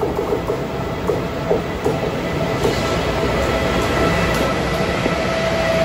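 BLS Cargo electric locomotives hauling an intermodal freight train pass close by at speed, with a rush of wheel and rail noise. There are sharp wheel clicks in the first couple of seconds, and a steady electric whine from the locomotives' traction equipment that grows louder near the end.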